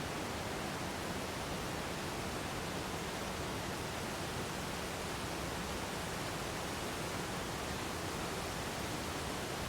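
Waterfall: falling water rushing steadily in an even, unchanging hiss from low to high pitches.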